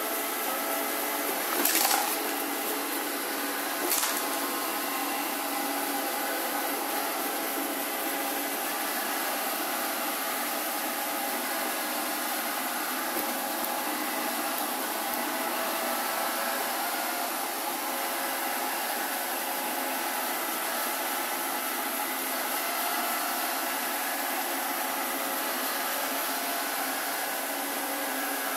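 Alfawise X5 robot vacuum cleaner running in automatic cleaning mode: its motors switch on at once and keep up a steady whir of several steady tones over a hiss. There are a couple of sharp clicks in the first few seconds.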